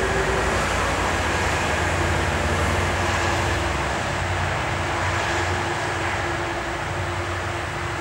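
Steady low rumble and hiss with faint steady whines: a distant EP1M electric locomotive hauling a passenger train, mixed with surrounding traffic noise. The deepest part of the rumble fades about halfway through.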